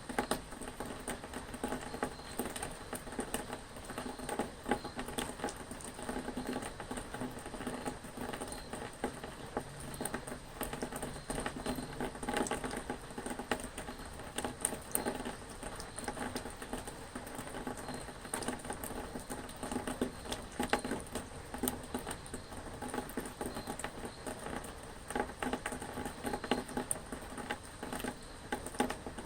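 Steady rain pattering, with many small drops tapping irregularly and densely throughout.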